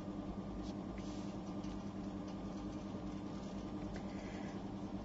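Low steady electrical-sounding hum of background room noise, with a few faint light ticks.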